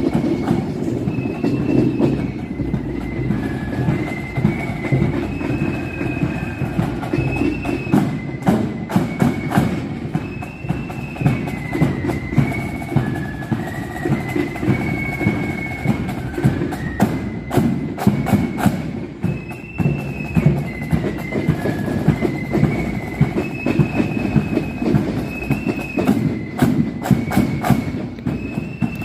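A marching flute band playing a tune: a high flute melody over the steady beat of snare and bass drums.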